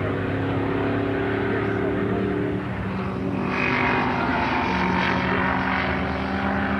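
Engines of racing vehicles running at a circuit: steady engine tones that shift pitch a little under halfway through, then a louder rush of engine noise in the middle as a vehicle comes by.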